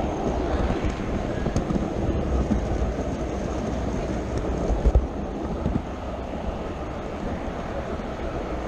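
HO scale model train running along the track, heard close up from on board: a steady rattling rumble of small wheels on rail, with a few sharp clicks, the loudest about five seconds in.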